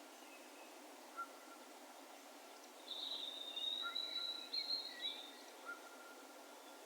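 Distant birds calling over an open field, with a steady faint hiss of ambience beneath. Short lower notes come a few times, each trailing off in a long even echo. A louder, higher, drawn-out call starts about three seconds in and lasts about two seconds.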